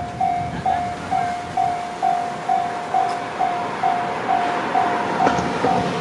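Japanese railway level-crossing warning bell ringing steadily, about two dings a second, while the barrier arms lower, the signal that a train is approaching. A single sharp knock sounds about five seconds in.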